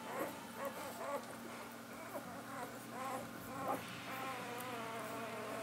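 One-week-old puppies suckling from their mother, giving many short high squeaks and whines that rise and fall, with one longer whine held near the end. A low steady hum runs underneath.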